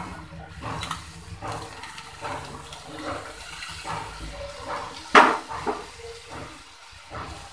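Cauliflower florets being pushed off a plastic plate into an aluminium pot: scattered rustles and soft clunks as they tumble in, with one louder knock about five seconds in.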